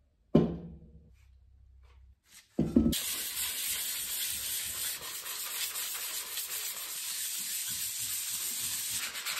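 Two short knocks in the first three seconds, then steady back-and-forth scratching of a painted metal lamp disc being hand-sanded with 120-grit sandpaper, roughening the paint before repainting.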